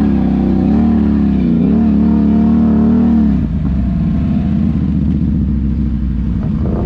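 ATV engine running under throttle, its pitch wavering up and down, then easing off about three seconds in to a lower, steadier running.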